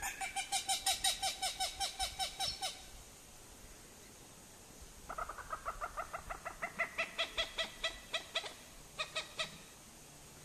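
White-faced whistling ducks calling: rapid runs of short, high whistled notes, about seven a second. One run lasts nearly three seconds, a second run starts after a pause of about two seconds, and a few last notes come near the end.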